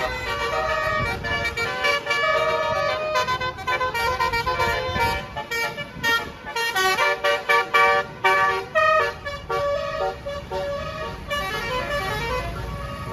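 Basuri telolet horn on a tour bus playing a tune of changing notes, with a run of short, quick notes about halfway through and a rising glide near the end.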